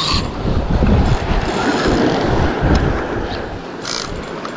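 Wind buffeting the microphone as a low, steady rumble over waves washing on rocks, with a few brief clicks.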